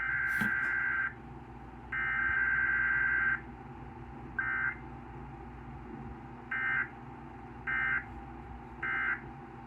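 Emergency Alert System SAME data bursts: a harsh two-tone warbling digital screech. Two long bursts of about a second and a half come first, then a short one, then three short end-of-message bursts about a second apart. A steady hum and light static from the broadcast sit underneath.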